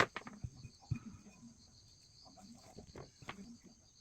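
A few sharp, light knocks and clicks, the first the loudest, over a steady high trill of insects.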